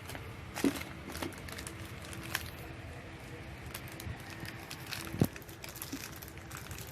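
Plastic toy packaging crinkling and rustling as it is handled and unwrapped, with scattered small clicks and one sharper tap about five seconds in.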